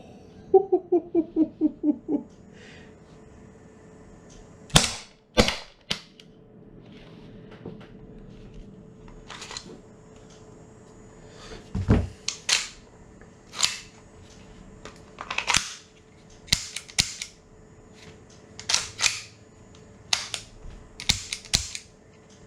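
Umarex H&K USP gas blowback airsoft pistol firing single shots at irregular intervals, each a sharp crack as the slide cycles, sometimes two or three in quick succession. Near the start, a quick run of about eight clicks.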